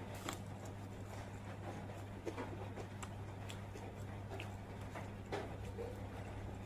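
A person eating: scattered small clicks and short mouth sounds of chewing, over a steady low hum.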